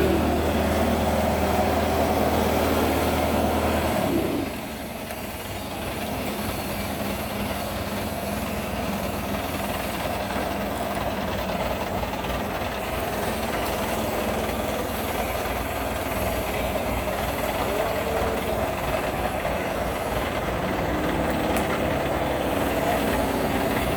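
Industrial tray washing machine running with a steady mechanical noise. A loud low hum underneath cuts off about four seconds in, and the machine noise carries on.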